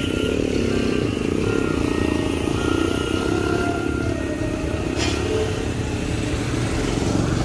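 Small motorcycle engine running as a motorcycle-and-sidecar tricycle rides past, over steady street traffic noise.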